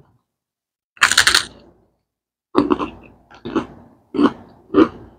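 Close-miked eating: a crisp bite about a second in, then a string of chews, roughly one every two-thirds of a second.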